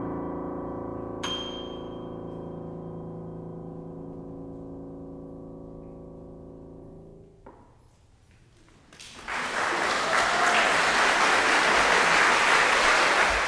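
A Stuart & Sons grand piano's final chord ringing and slowly dying away, with a high note struck about a second in. It cuts off after about seven and a half seconds, and after a short pause an audience applauds, the loudest sound here.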